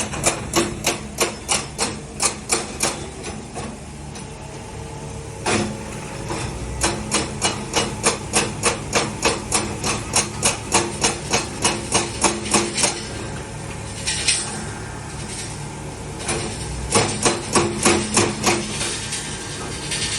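Runs of sharp, rhythmic hammer-like knocks, about three a second, over the steady hum of a running diesel engine at a stone-cutting site.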